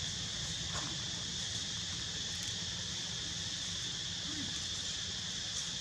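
Steady insect chorus: a constant, unbroken high-pitched buzz, with a steady low hum beneath it.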